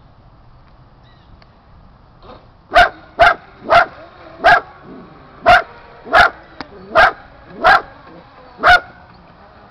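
A dog barking: about nine loud single barks, roughly half a second to a second apart, starting about three seconds in.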